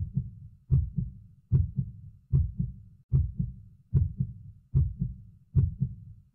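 Heartbeat sound effect: a steady double thump, lub-dub, repeating about every 0.8 seconds (around 75 beats a minute) over a faint low rumble.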